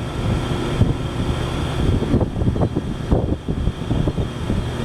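Wind buffeting the microphone in irregular gusts over the steady low rumble of a moving car.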